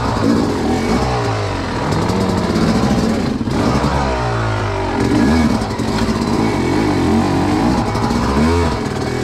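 Dirt bike engine revving up and down repeatedly in short throttle bursts, the pitch rising and falling every second or two as the bike crawls over rocks.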